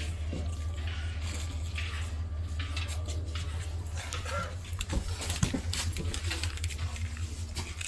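Steady low rumble with scattered clicks and knocks, a few sharper knocks about five seconds in.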